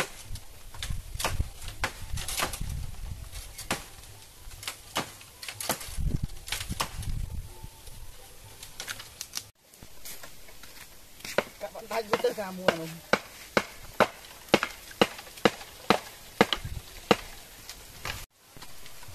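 A blade chopping bamboo stalks: sharp strokes, irregular at first, then a steady run of about two strokes a second. A short burst of speech comes partway through.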